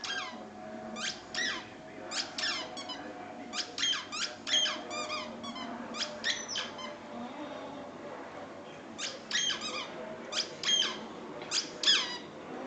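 Patterdale terrier whining in short, high-pitched whimpers, several in quick clusters with a pause of about two seconds midway, out of wanting the ball the other dog is holding.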